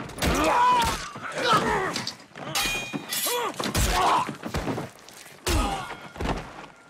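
A sword fight: men grunting and groaning between several heavy thuds of blows, with a brief high ringing about halfway through.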